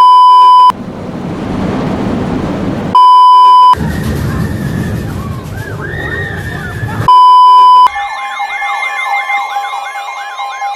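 A loud, steady beep tone, each about three-quarters of a second long, sounds three times at even intervals of about three and a half seconds. Between the beeps come other sounds: first a rushing noise, then noise with a faint wavering siren, then from about eight seconds an electronic siren yelping about three times a second over a steady tone.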